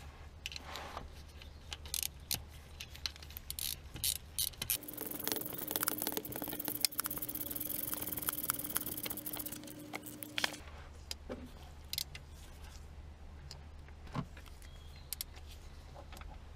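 Metal tools clinking and clicking on the alternator's mounting bolts as they are fitted. From about five seconds in, a steady whirring hum runs for about five seconds, then stops, and the scattered clicks go on.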